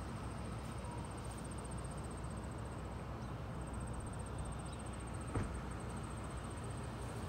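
Outdoor background sound: a steady low rumble under a high, rapid trill of an insect, which breaks off briefly a few seconds in. There is a single knock about five seconds in.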